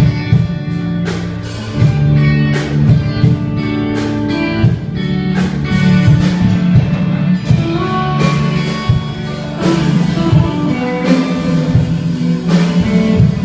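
Instrumental passage of a pop song: guitar over a strong bass line and a steady drum beat.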